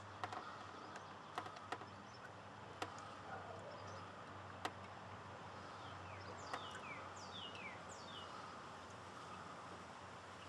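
Faint scattered clicks and taps, with a bird calling a quick run of falling chirps about six to eight seconds in.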